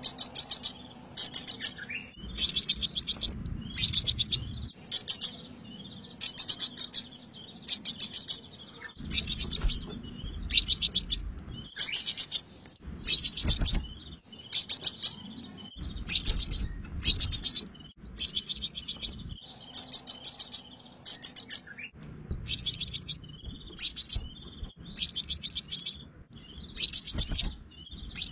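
Crimson sunbird calling: rapid, high-pitched trilled chirps in bursts of about a second, repeated almost without pause.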